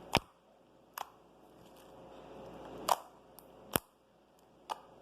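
Slime being squeezed and worked by hand, giving off about five sharp clicks and pops at irregular intervals, the loudest about a quarter second in and a little before four seconds in.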